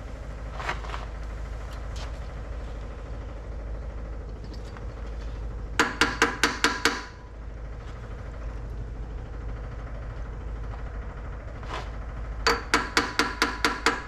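Electric fuel pump ticking as it primes the carburetors with the ignition key on: two bursts of rapid clicking, about six clicks a second, over a low steady hum.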